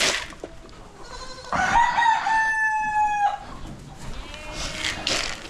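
A rooster crowing once: one drawn-out call of nearly two seconds in the middle, over rustling noises at the start and near the end.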